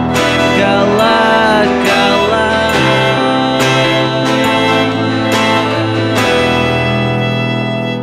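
A rock band playing an instrumental passage: electric guitar and keyboard over drums, with cymbal crashes about once a second.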